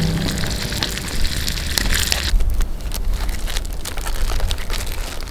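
Irregular crunching and crackling over a steady low rumble, with scattered sharp clicks. The high hiss thins out a little after two seconds.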